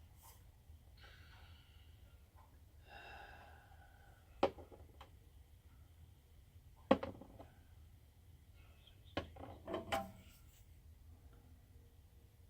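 Metal sockets being clicked onto the clips of a socket rail organizer, heard as a few sharp clacks a couple of seconds apart, the last two close together.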